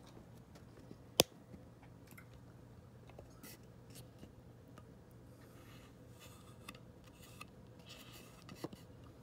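Quiet hand-handling sounds: faint rubbing and rustling, with one sharp click about a second in and a smaller click near the end.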